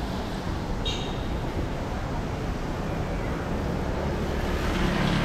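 City street traffic: a steady rumble and hiss of passing vehicles, with a brief high squeak about a second in.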